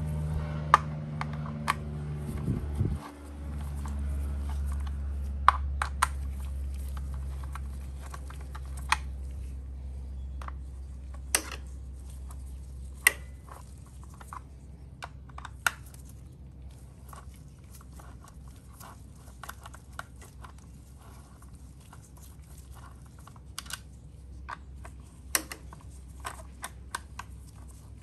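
Light metallic clicks and taps, scattered irregularly, as small hand tools work at bolts on a motorcycle engine case. A low steady hum runs beneath and slowly fades.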